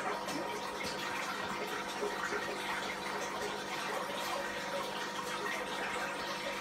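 Aquarium water splashing and bubbling steadily, with a fizzy crackle, over a faint steady hum from the tank's equipment.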